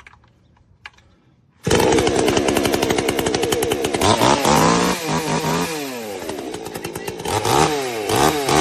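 NEOTEC NCS 6200A 62cc two-stroke chainsaw, started from cold, catching suddenly about two seconds in and running loudly, its revs rising and falling on the throttle twice.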